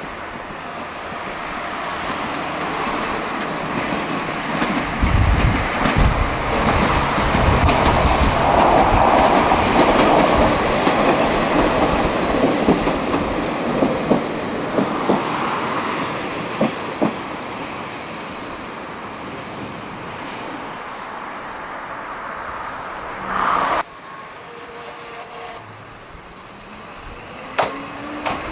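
Two-car Ichibata Electric Railway 3000 series electric train, a former Nankai 21000 series, passing by with its wheels clattering over the rail joints. The sound builds, is loudest in the middle with a few low thuds, then fades, and cuts off suddenly about 24 seconds in.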